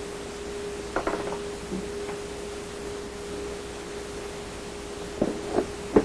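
A steady, even tone throughout, with a few sharp clicks and knocks from parts being handled: one about a second in and three in quick succession near the end.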